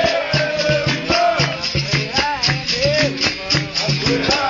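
Capoeira roda music: berimbaus struck in a steady, repeating rhythm, with caxixi shakers rattling along on the strokes.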